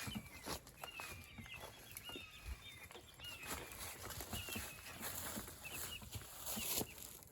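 Young meat chickens peeping: a steady string of short, high chirps that each fall slightly in pitch, with scattered knocks and rustles.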